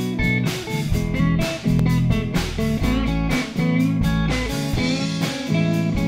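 Intro music: a bluesy guitar tune with a steady beat.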